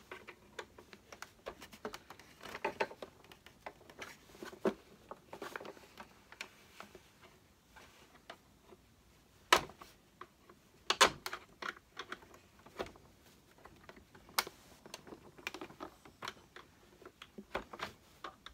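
Irregular clicks and knocks of plastic parts on an old Hoover Turbo Power Plus upright vacuum, as its bag door casing is handled and pried at to unclip it. Two louder knocks come near the middle.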